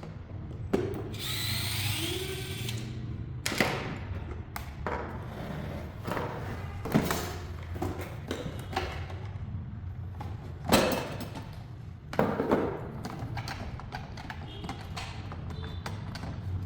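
Cuckoo rice cooker being taken apart: a series of knocks and clunks of its plastic and metal parts being handled, with a brief whir of a power tool about a second in.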